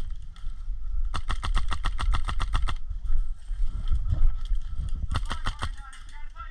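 HPA-powered airsoft rifle (a Noveske replica) firing full-auto: a long rapid burst of shots, a pause, then a shorter burst near the end, over a low rumble on the microphone.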